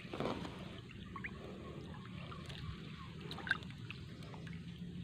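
Faint trickling and dripping of water as a wet gill net is paid out over the side of a boat, with small ticks and one light tap about three and a half seconds in.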